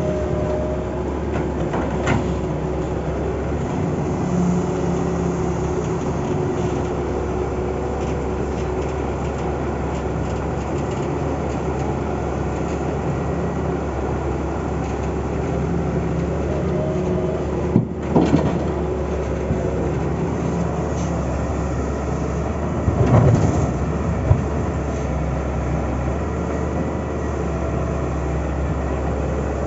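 Heavy earthmoving machine's engine running steadily, with a few sharp clanks: one about two seconds in, one past the middle and a cluster near the end.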